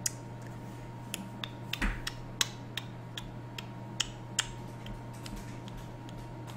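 Irregular sharp clicks and taps, about two or three a second, over a faint steady hum; they thin out after about four and a half seconds.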